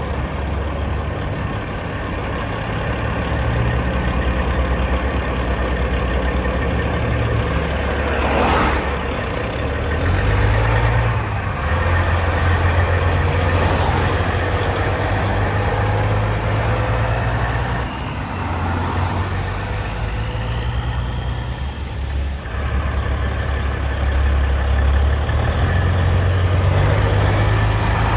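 Heavy diesel engines of semi-truck tractors pulling away one after another, the engine note rising and falling in steps. A short hiss comes about eight seconds in.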